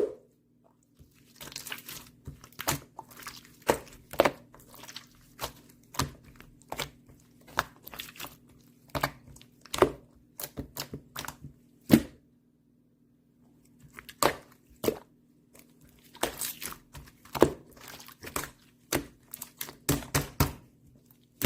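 Clear slime worked by hand: irregular sticky pops and crackles as it is pressed, folded and stretched, with a short pause about halfway through.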